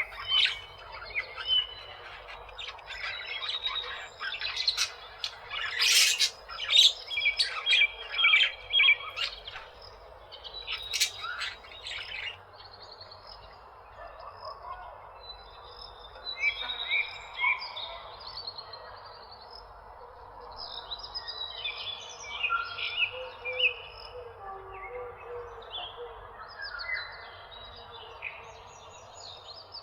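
A flock of parakeets chirping and squawking together, busiest and loudest in the first dozen seconds, then thinning to softer chirps.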